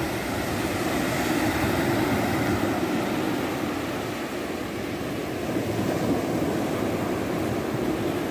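Small ocean waves breaking and washing up a sandy shore, with wind rumbling on the phone's microphone.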